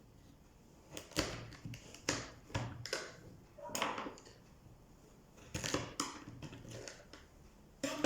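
Kitchen knife cutting vegetables into cubes on a cutting board: irregular sharp chops and short scraping cuts, about eight in all.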